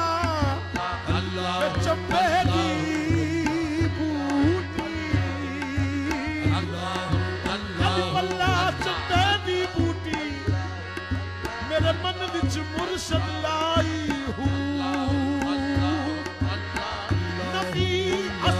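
Qawwali music: male voices singing ornamented, wavering phrases over a steady tabla rhythm.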